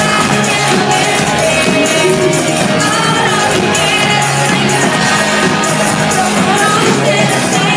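Live pop band with electric guitar playing while a woman sings into a microphone, heard loud from the audience.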